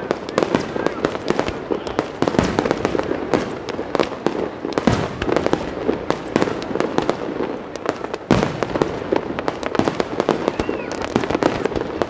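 Fireworks display: a dense, continuous run of shell bursts and crackling bangs overlapping one another, with heavier booms about two and a half, five and eight seconds in.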